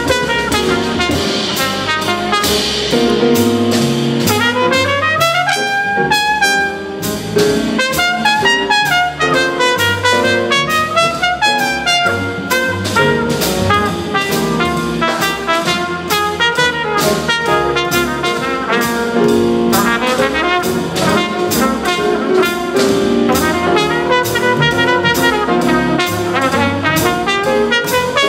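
Live jazz quintet playing: a trumpet leads with quick runs up and down over piano, a walking double bass and drums with steady cymbal strokes.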